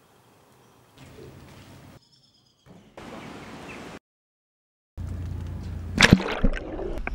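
A string of short, unrelated snippets: faint outdoor ambience, a second of silence, then louder water sloshing and splashing near the end, with a few sharp splashes about six seconds in.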